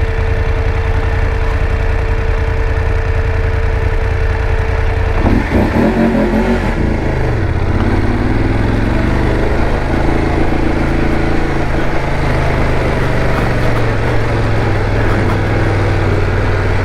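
BMW F850GS motorcycle's parallel-twin engine idling at a standstill, then revving as the bike pulls away about five seconds in and running steadily under load at low speed on a dirt road.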